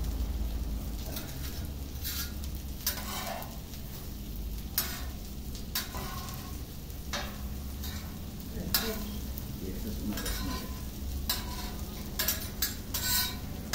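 Metal spatula and fork scraping and clinking on a steel hibachi griddle while an omelette is folded around fried rice, with a steady low sizzle underneath. The scrapes and taps come irregularly, thickest near the end.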